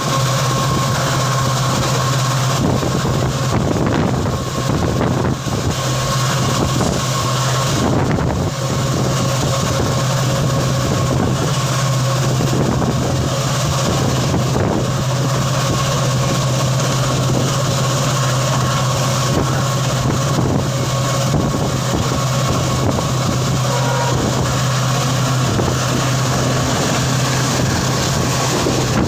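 EMD diesel locomotive's two-stroke engine running with a loud, steady hum, with a constant higher tone above it.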